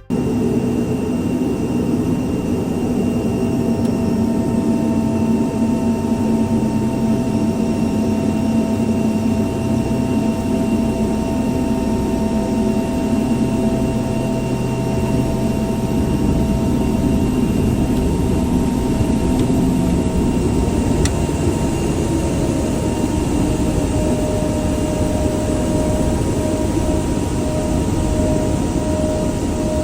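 Cessna 441 Conquest's twin Garrett TPE331 turboprop engines running, a steady drone with several held tones. A further held tone comes in about two-thirds of the way through.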